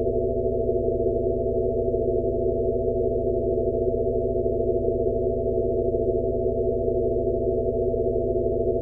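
Synthesized sound-therapy tone track for tinnitus relief: several steady electronic tones at low and middle pitches layered with a soft band of rushing noise, holding unchanged throughout.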